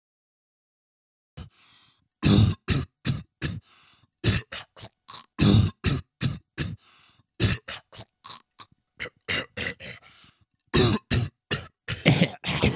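A person making a rapid run of sharp, percussive mouth and throat sounds into a cupped hand, roughly two to three a second with breathy hiss between, like beatboxing or coughing. It starts after a short silence, about a second and a half in.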